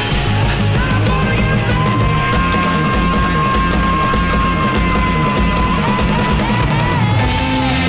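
Rock music with drums and guitar, with one long held note through the middle.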